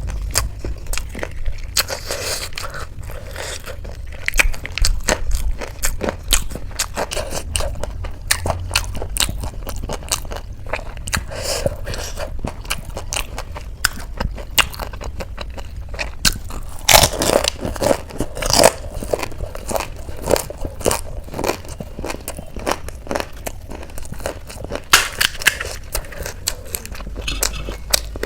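Close-up crunching and chewing of crisp chaat snacks, with many irregular sharp crackles as the food is bitten and chewed.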